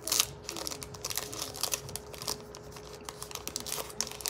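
Wrapper of a trading-card pack crinkling and tearing as it is worked open by hand: a run of sharp crackles, loudest just at the start.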